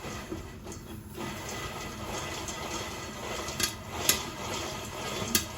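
Whirley Pop stovetop popcorn pot's stirring crank turning with a steady rattle, with the first few kernels popping as sharp pops in the second half: the oil has reached popping heat.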